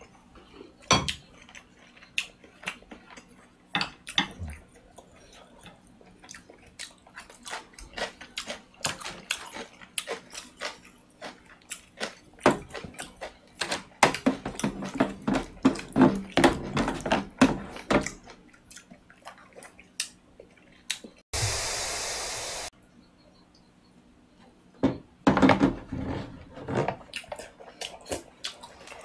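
Wooden chopsticks and a wooden spoon clicking and scraping against a black plastic food tray as leftover rice is scooped out, with close-up chewing and mouth sounds. A little over two-thirds of the way in, a rush of noise lasts about a second.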